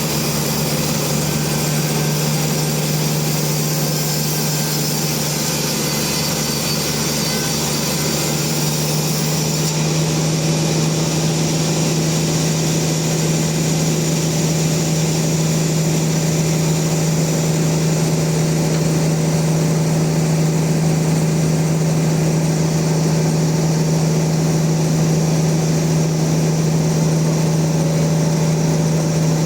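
Sawmill machinery running steadily, with a constant low hum and no breaks.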